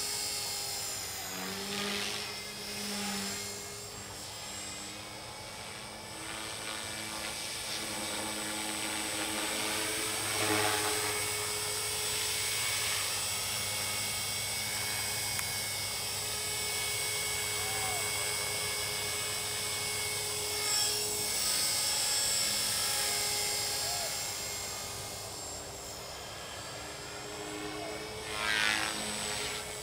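Align T-Rex 450 Pro electric RC helicopter in flight: a steady high whine from the motor and rotors. Several rushing blade swells rise and fall as it manoeuvres and passes, the strongest near the end.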